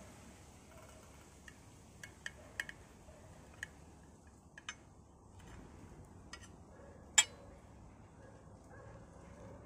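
Metal spatula clinking against a china plate as stewed vegetables and meat are served onto it: scattered light clicks, then one sharper clink about seven seconds in.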